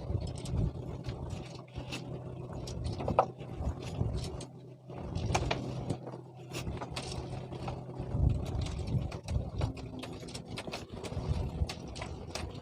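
A small engine running steadily at a low hum, with scattered clicks and knocks of handling on top; the hum stops about eight seconds in.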